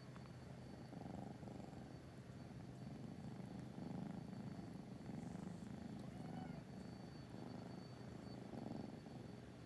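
Domestic cat purring continuously, the low rumble swelling and fading in slow waves about once a second.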